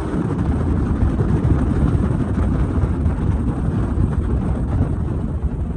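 Fishing boat under way: its outboard motor running steadily, with wind rumbling on the microphone.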